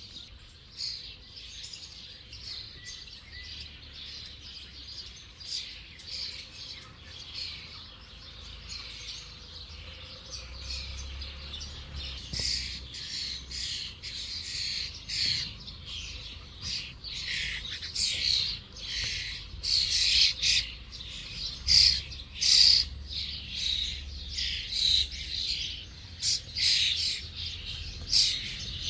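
A chorus of small songbirds chirping and singing over one another, thickening about halfway through into a dense run of short, sharp calls.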